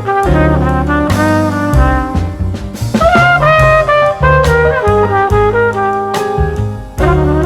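Upbeat jazz music led by brass, with trumpet and trombone lines over a walking bass and drum kit.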